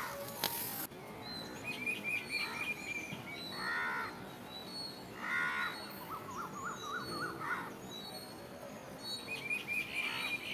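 Several birds calling outdoors: repeated warbling trills and short chirps, with a few harsher calls in between. A brief sharp click-like noise sounds just after the start.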